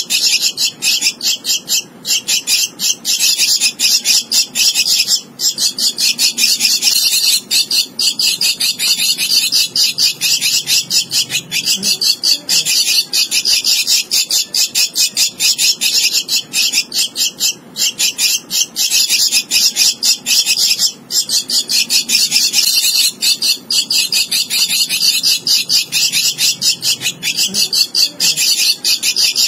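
Javan myna nestling begging with its beak gaping: a fast, continuous run of harsh, high chirping calls, broken only by a few short pauses.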